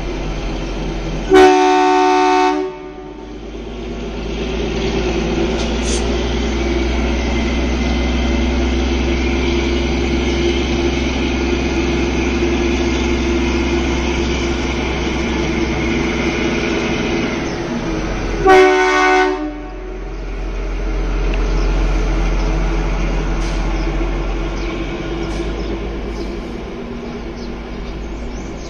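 ZDM 712 narrow-gauge diesel locomotive sounding its horn in two blasts of about a second each, one near the start and one about halfway through. Its engine runs steadily between the blasts and fades near the end as it moves away.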